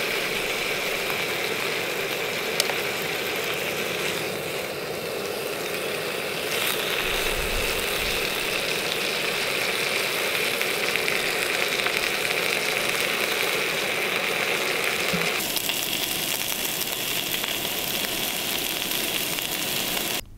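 Bacon sizzling in a frying pan over a camping stove, a steady, dense frying noise with the stove burner running under it. The sound shifts in tone a few times.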